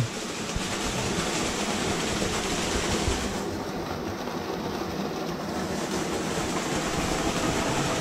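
Steady rush of a small waterfall pouring and splashing into a pool beside a rock cave.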